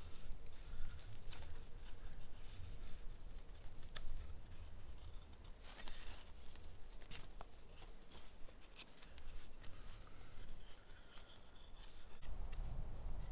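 Carving knife shaving the bark off a wooden stick in repeated, irregular scraping strokes, the bark peeling away in long strips.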